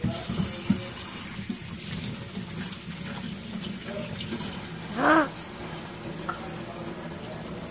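Kitchen tap running water into a plastic bottle in a stainless steel sink as the bottle is rinsed out. A couple of light knocks come in the first second, and a short pitched sound that rises then falls comes about five seconds in.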